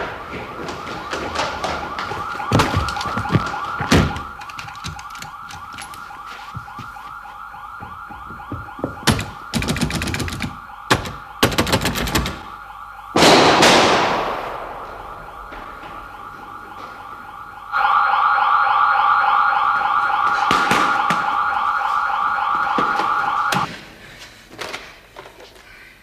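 Burglar alarm siren sounding a shrill, warbling electronic tone, louder from about 18 seconds in, then cutting off suddenly a few seconds before the end. Knocks and clatter sound over it in the first half, and a loud bang with a trailing echo comes about 13 seconds in.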